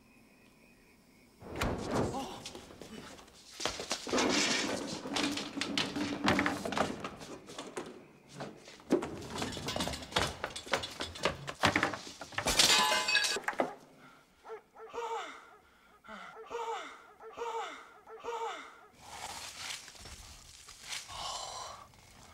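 Film sound effects: a run of thuds and clattering with things knocking over and breaking, and a loud noisy crash a little past the middle. After it comes a quieter stretch with a short falling sound repeating about twice a second.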